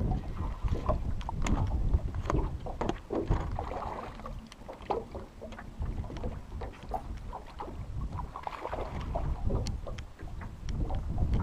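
Wind buffeting the camera microphone on an aluminium fishing boat, a steady low rumble, with scattered small knocks and clicks throughout.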